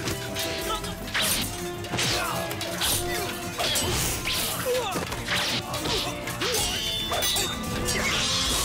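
Staged battle sound effects: a rapid run of weapon clashes, blows and swishes from a sword-and-staff fight, over a dramatic music score.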